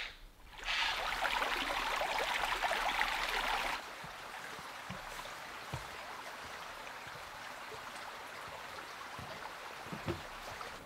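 Forest stream running, loud for the first few seconds, then quieter after an abrupt drop. Over the quieter part come a few soft thuds of hikers' footsteps on a log footbridge.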